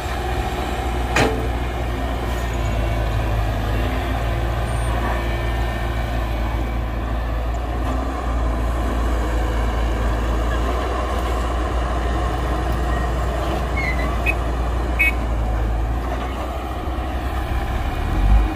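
Heavy diesel machinery of an excavator loading a dump truck, its engine running steadily with a deep drone. There is a sharp clank about a second in and a couple of short high squeaks near the end.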